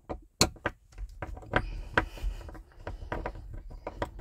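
Hand screwdriver working small screws out of the retaining tabs on a camper van's window frame: a string of irregular clicks, taps and scrapes.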